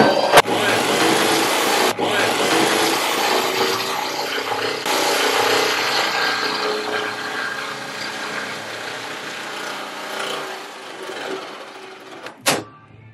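Power tool cutting through the sheet-metal body of a Mercedes Sprinter van for a window opening. The sound is loud and steady, then dies away near the end, followed by a brief knock.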